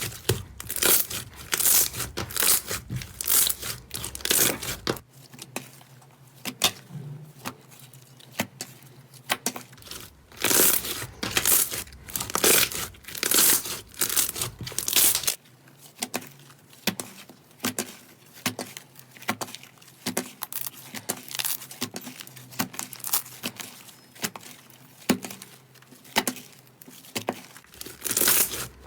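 Slime being squeezed and pressed by hand close to the microphone, giving crackling, crinkling sounds in quick clusters of short, sharp pops that come and go throughout.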